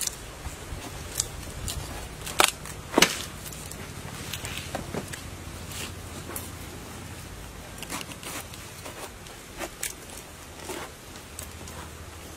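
Ripe jackfruit being pried apart by hand along a knife cut in its rind: two loud cracks about two and a half and three seconds in, then scattered smaller clicks and cracks as the halves separate.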